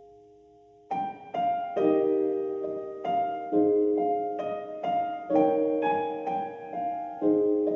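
Slow, gentle piano music. A held chord fades out, then single notes and chords are struck one after another, about one to three a second, each ringing and dying away.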